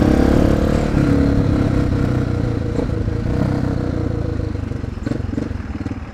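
Suzuki DR650's single-cylinder engine running as the motorcycle rides along, steady at first, then falling quieter and choppier over the last two seconds.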